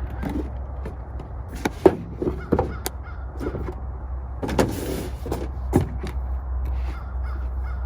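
Packaging of a flashlight kit being opened and handled: scattered clicks, knocks and rustling, the sharpest click about two seconds in, over a steady low rumble.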